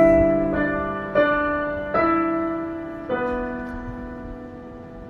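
Background piano music: slow sustained chords struck about once a second, each left to ring and fade.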